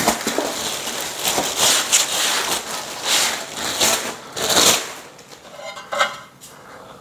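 Plastic wrapping rustling and crinkling in repeated handfuls as powder-coated steel bed-frame pieces are unwrapped and handled, with light clinks of metal. The rustling dies down near the end.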